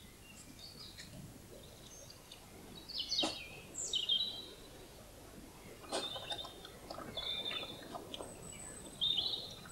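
Birds chirping in woodland, with a few short crunching sounds from a European badger eating as it forages in the soil.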